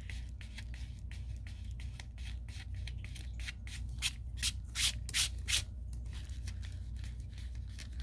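Fingertip rubbing dried masking fluid off watercolor paper: a quick series of short, scratchy strokes, with a few louder strokes about four to five and a half seconds in.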